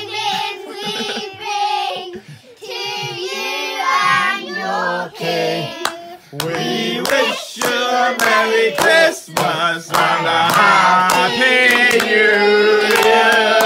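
Young children singing together, with hands clapping close to the microphone; the clapping sets in strongly about halfway through and continues alongside the singing.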